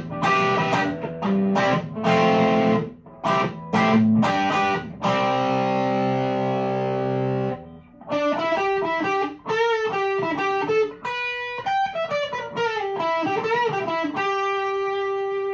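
Overdriven electric guitar: a Fender Player Telecaster on its Seymour Duncan bridge pickup, through a Fulltone Full-Drive 2 overdrive pedal into a VOX AC10 amp. Short choppy chords for about five seconds, then a chord left to ring, then a single-note lead line that ends on one long held note.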